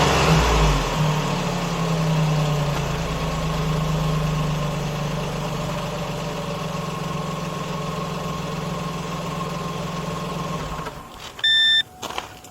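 A motor vehicle's engine idling steadily, then shut off near the end, followed by a single short electronic beep and a few clicks.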